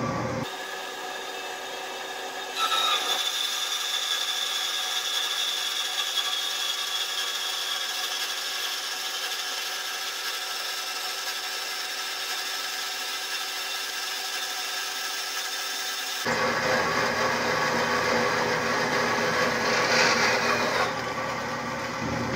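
Horizontal metal-cutting bandsaw running and cutting through a metal bar: a steady whine with several ringing tones from the blade. The cut steps up in level about two and a half seconds in, and turns louder and coarser about sixteen seconds in.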